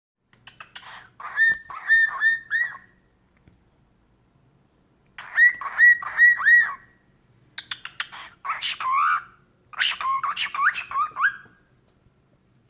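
Cockatiel chirping in four bursts of quick, repeated whistled notes, each note sliding up and down in pitch, with short pauses between the bursts.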